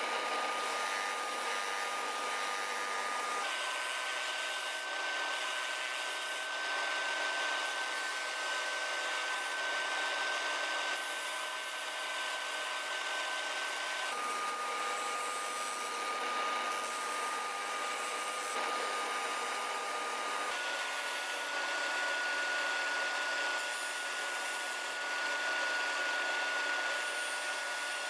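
Spindle sander running with a steady high whine, its pitch stepping up or down a few times, over the hiss of wood being sanded against the spinning drum.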